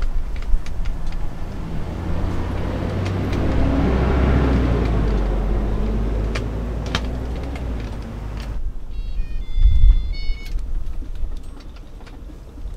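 A road vehicle passing close by, its rumble swelling and then fading, with scattered clicks and knocks. A short run of high electronic beeps comes about three quarters of the way through.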